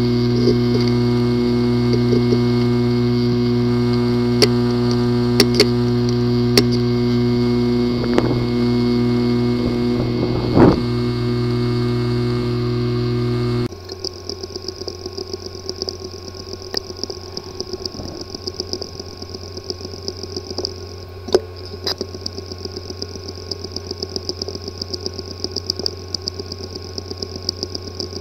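Sample recordings of hard drives with a physically damaged disk assembly. The first drive gives a steady buzz broken by a few sharp clicks. About halfway through it cuts abruptly to a second, quieter drive ticking rapidly, with occasional louder clicks.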